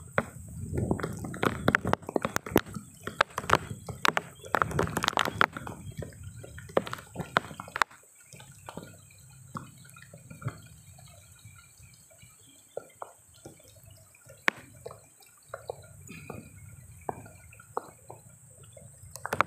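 Footsteps and rustling through wet, flattened rice plants, with many small clicks and knocks. It turns quieter about eight seconds in, leaving scattered clicks.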